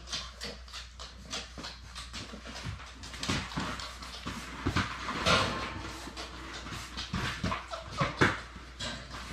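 Labrador Retriever puppies suckling from their standing mother: a quick run of short smacking clicks, several a second, louder about five and eight seconds in.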